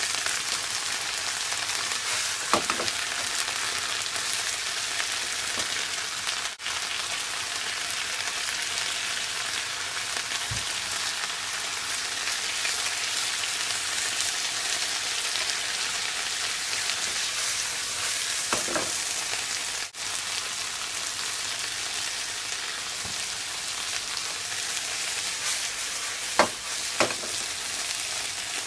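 Napa cabbage stir-frying in a hot pan, a steady sizzle, with a few brief knocks, once near the start and three times later on.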